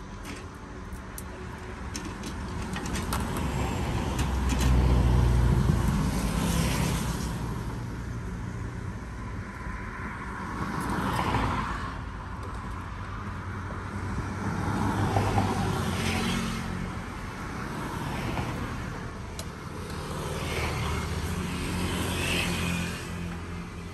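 Road traffic: a steady rumble with four vehicles passing one after another, each swelling and fading away.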